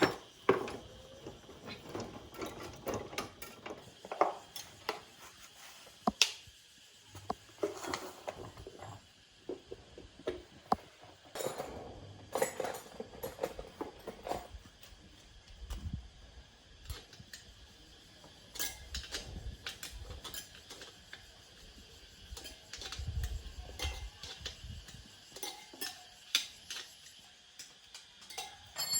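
Metal hand tools and parts being handled: irregular clinks, taps and knocks of metal on metal, with a few low thuds in the second half.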